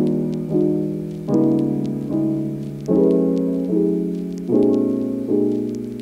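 Background piano music: soft chords struck about every three-quarters of a second, each fading before the next.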